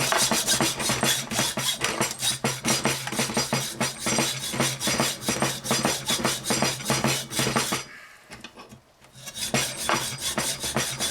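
Hacksaw cutting through the copper windings of a small transformer held in a vise, in quick regular back-and-forth strokes. The sawing stops for about a second near the end, then starts again.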